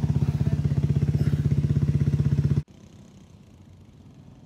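ATV engine running hard close to the microphone, with rapid, even firing pulses. About two and a half seconds in it drops suddenly to a much fainter ATV engine heard from a distance.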